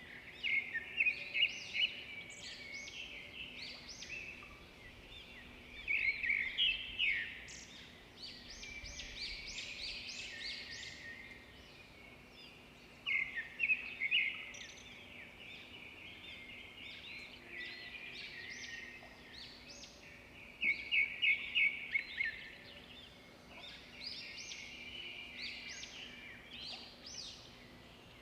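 Pieces of khaja dough sizzling as they deep-fry in hot oil in a kadai. The crackling rises in louder bursts about five times, as each new piece goes into the oil, and keeps up a steady lower sizzle in between.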